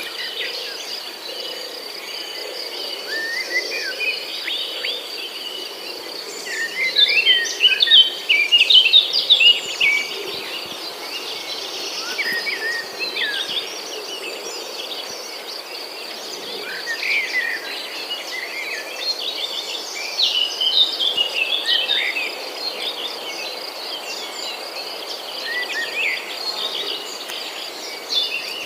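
Several small birds chirping and twittering in quick, overlapping calls, busiest in two spells, over a continuous high-pitched insect trill.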